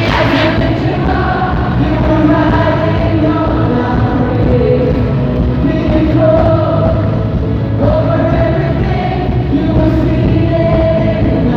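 Live Christian worship music: a band playing with several voices singing the melody together.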